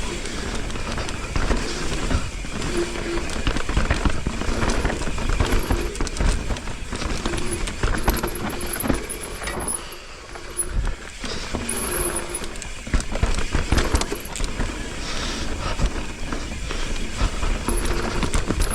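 Mountain bike riding down a dirt singletrack: tyres running over dirt and roots, the bike's chain and frame rattling over bumps, and wind rumbling on the helmet or chest camera's microphone.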